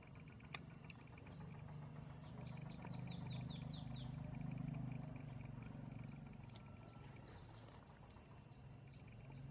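Countryside ambience: a bird gives a quick run of falling chirps a few seconds in and more scattered chirps later, over steady insect trilling. A low drone swells in the middle.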